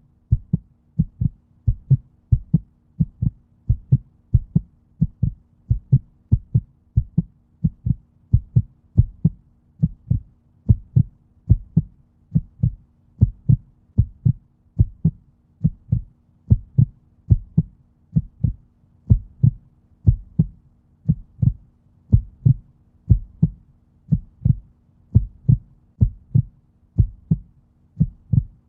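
Heartbeat, a steady lub-dub of low double thumps at about one beat a second.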